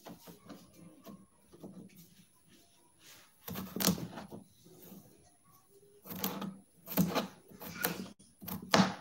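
Kitchen knife cutting cucumber on a cutting board: a string of light taps of the blade, then several louder knocks on the board over the second half.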